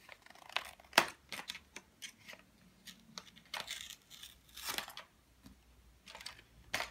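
Paper wrapper being crinkled and torn open by a child's hands: irregular crackles and snaps, the sharpest about a second in.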